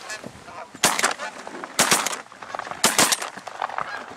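Three shotgun blasts about a second apart, fired at Canada geese flying low over the decoys, with the geese honking between the shots.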